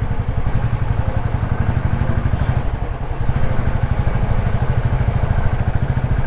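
Motorcycle engine running steadily while being ridden, a rapid, even pulse of exhaust beats.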